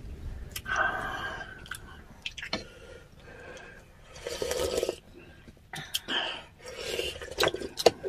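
Close-up eating sounds of salmon-head sinigang: chewing and slurping the sour broth in several short bursts, with a few sharp clicks of utensils against the bowl, the loudest near the end.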